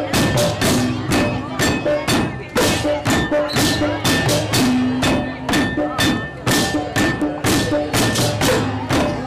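Balinese tek-tekan: many wooden and bamboo slit drums (okokan/pentungan) knocked in a dense interlocking rhythm of several sharp clacks a second, with a kendang drum and a few held gamelan tones underneath.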